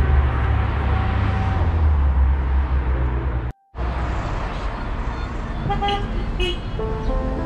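Street traffic: a motor vehicle's engine rumbling close by, then, after a brief cut, traffic noise with two short horn toots about six seconds in.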